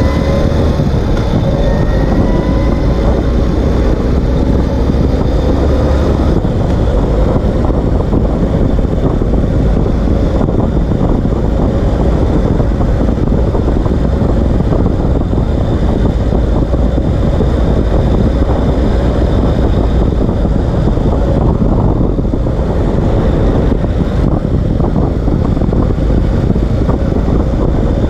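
Ural Gear Up sidecar motorcycle driving at speed, heard from under its chassis: steady engine and tyre-on-asphalt road noise, with the engine note rising briefly in the first couple of seconds.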